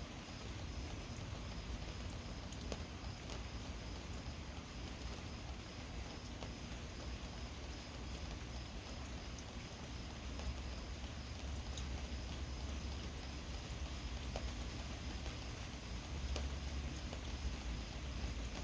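Steady rain, with scattered drops tapping and a low rumble underneath that grows louder about ten seconds in and again near the end.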